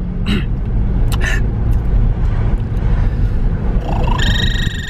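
Steady road rumble inside a moving car. About four seconds in, a person starts a high, steady whistling tone made with pursed lips, a mouth trick he has just learned.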